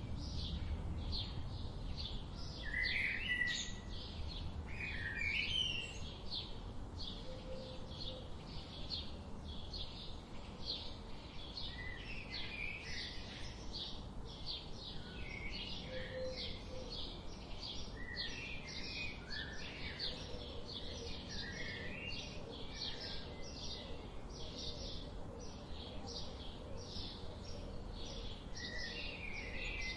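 Songbirds singing: a steady series of short high chirps, several a second, with lower warbling phrases from another bird at intervals, over a low rumbling background hum.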